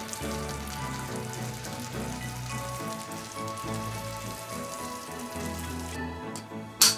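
Food sizzling in a frying pan with a steady crackle, under background music. The sizzle drops away near the end and a single sharp clink follows.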